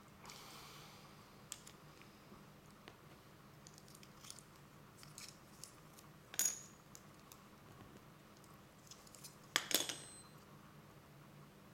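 Small hard plastic model-kit parts clicking and tapping as they are handled and fitted together, with two louder plastic clatters about six and ten seconds in.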